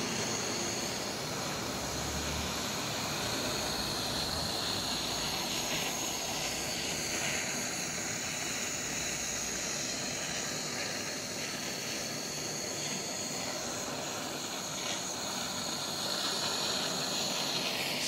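Gas torch flame hissing steadily as it heats a washing-machine transmission housing, expanding the metal so the bushing can be freed.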